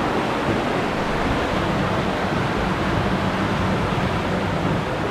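Underground river rushing steadily through a cave passage.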